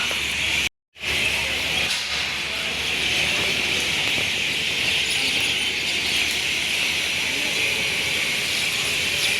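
Steady hissing rail noise of a train, with a brief cut to silence just under a second in.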